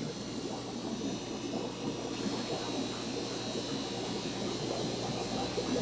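Steady bubbling and water noise of aquarium air lines and filters, with a steady low hum underneath.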